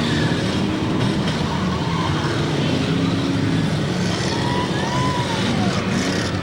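Many demolition derby cars' engines running and revving together, with a few engines rising and falling in pitch about four to five seconds in.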